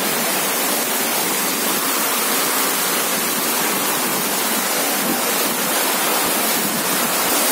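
Heavy rain pouring down, a steady, even hiss that does not let up.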